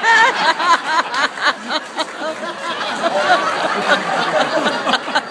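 Audience laughter, many people laughing at once.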